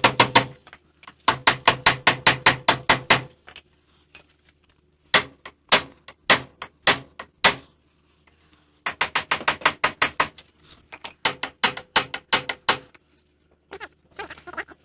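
Big hammer striking a chisel against a seized wheel hub assembly to drive it out. The blows ring like metal and come in quick runs of about five a second, lasting a couple of seconds each, with a few single blows and short pauses between.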